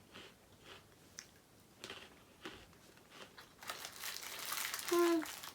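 Faint rustles and clicks, then about three and a half seconds in a louder crinkling and crackling of a plastic snack packet of pretzel sticks being handled, with a short hummed 'mm' about five seconds in.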